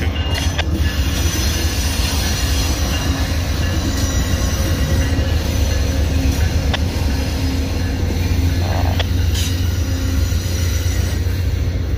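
Departing Amtrak passenger train rolling past at low speed: a deep, steady rumble from its GE Genesis diesel locomotives as they go by, then the bilevel Superliner cars, with a few sharp clicks from the wheels on the rails.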